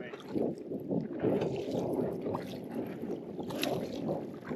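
Water splashing and sloshing around a kayak, with a sharp click about three and a half seconds in.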